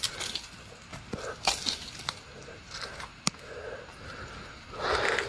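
Light rustling of leaf litter with a few scattered sharp snaps and clicks of twigs and stems being handled by hand.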